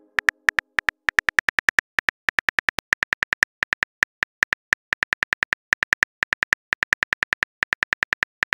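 Phone keyboard typing clicks, one short click per letter, coming several a second in quick runs with brief pauses as a text message is typed out.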